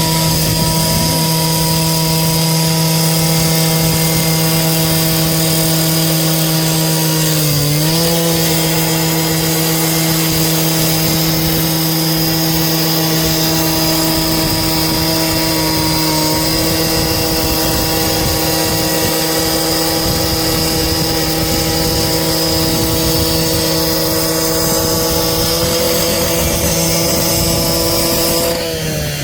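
Small petrol engine of a power saw running steadily at high revs, its pitch dipping briefly about eight seconds in and again near the end as it takes load.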